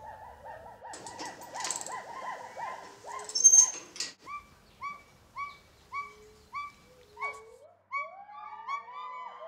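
Gibbons calling: quick warbling notes, a loud sharp sound about three and a half seconds in, then a run of evenly spaced hoots that rise and fall, about two a second. Near the end other voices join in with overlapping rising whoops.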